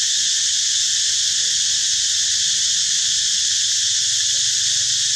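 A dense, steady, high-pitched insect chorus that goes on unchanged.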